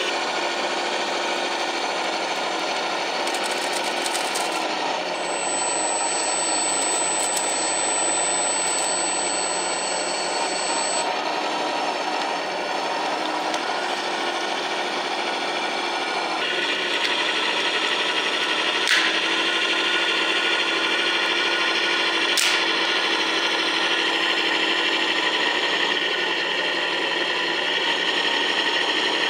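A radio-controlled 1/14 scale model bulldozer running, with the ESS-Dual sound kit playing a diesel engine sound through its small speakers over the whine of the electric track drive. About halfway through the sound steps up, louder and higher, and there are two short clicks later on.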